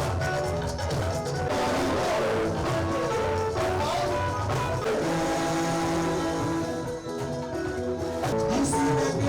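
Music with guitar, steady bass and drums, held notes layered over a constant beat.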